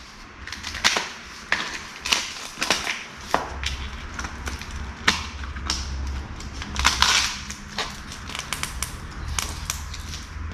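Handling and prying open a fishing rod's shipping package: irregular sharp clicks and knocks mixed with scraping and crinkling of packing material.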